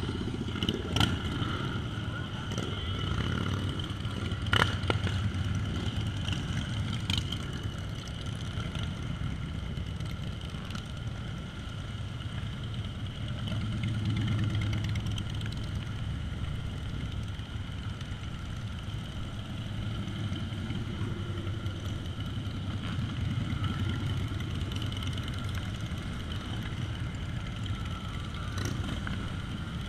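A procession of cruiser and touring motorcycles passes one after another at low speed, their engines rumbling steadily and swelling as each nearby bike goes by. A few sharp clicks come in the first several seconds.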